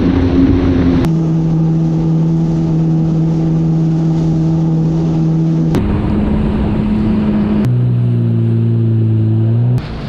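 Yamaha WaveRunner personal watercraft's four-stroke engine running steadily under way, with the hiss of water and spray. The engine pitch holds steady, then switches abruptly to a different steady pitch about 1, 6 and 8 seconds in, and it gets quieter near the end.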